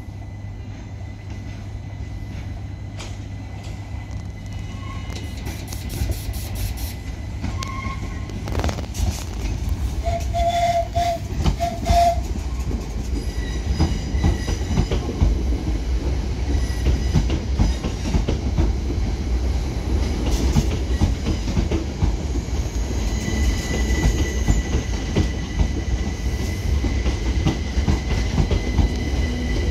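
Gatwick Express Class 387 electric multiple unit running slowly past: a low rumble of wheels on rail that swells as it nears, with frequent clicks over the joints and points. A brief pulsed tone sounds about ten seconds in, and a thin high whine from the traction equipment comes in near the end.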